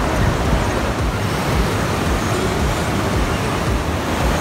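Steady rushing roar of water pouring over Fourteen Falls.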